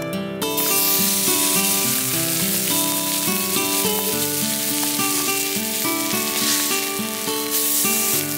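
A slice of marinated meat laid into a hot black frying pan, sizzling from about half a second in and going on steadily.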